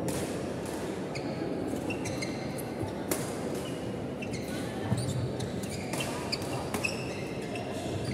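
Badminton rally: several sharp racket strikes on the shuttlecock, the clearest about three, five and seven seconds in, with short squeaks of court shoes on the wooden floor. Under them runs the murmur of a crowd echoing in the hall.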